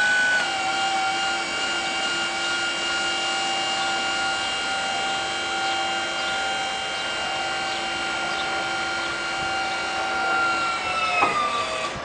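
Electric forklift's hydraulic lift-pump motor whining steadily as the mast raises a drum on a parrot-beak attachment. The whine drops slightly in pitch about half a second in, then slides down and stops near the end with a click as the lift finishes.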